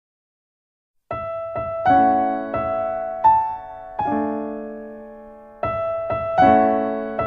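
Background music played on a piano or electric piano: slow single notes and chords that ring and die away, starting after about a second of silence.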